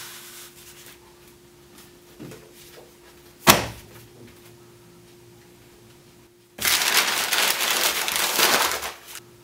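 A single sharp knock about three and a half seconds in, then a loud burst of noise lasting about two and a half seconds, over a faint steady hum.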